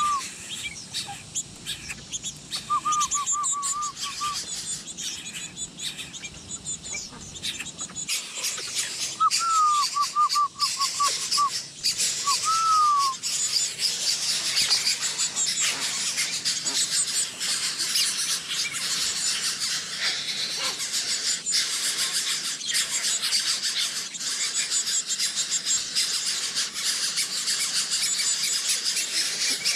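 Birds chirping. Short runs of quickly repeated lower call notes come in the first half, then many high, rapid chirps grow dense and continuous from about halfway in.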